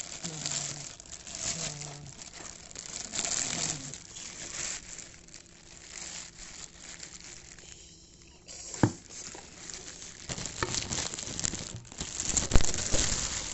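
Clear plastic wrapping crinkling and rustling as it is handled and pulled off a new wooden hand drum. A sharp knock comes about nine seconds in, and a louder thump near the end.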